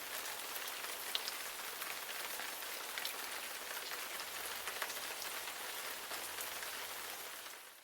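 Steady rain falling, with scattered individual drops ticking; it fades out near the end.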